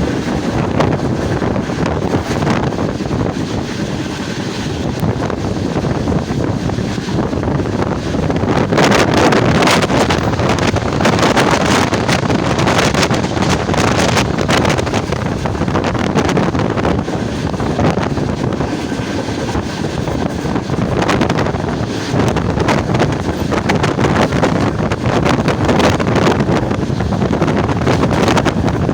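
Passenger train running on the line: a steady rumble with a dense stream of wheel and rail clatter, and wind buffeting the microphone.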